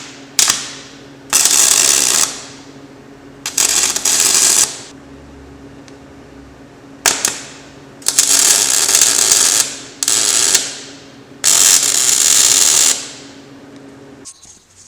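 Electric arc welder laying short tack welds on a steel conveyor chain's master link and half-link pin: about five crackling bursts of arc, each a second or so long, with a steady hum from the welder underneath that stops near the end.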